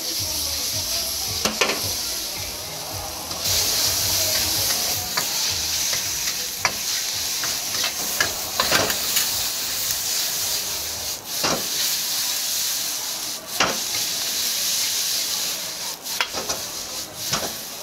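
Hor fun (flat rice noodles) sizzling in a hot wok while a metal ladle scrapes and knocks against the wok, giving sharp clinks every second or two over a steady hiss. The hiss grows louder about three and a half seconds in.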